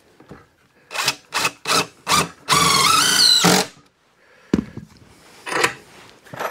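Drill driving screws into the lumber of a beam: four quick trigger pulses, then one longer run of about a second with the motor pitch rising. A knock about four and a half seconds in, and another short burst of the drill after it.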